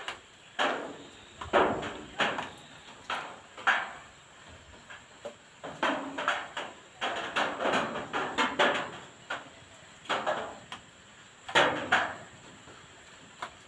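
Irregular sharp knocks and taps, roughly one a second and bunched more closely in the middle, over a faint steady hiss.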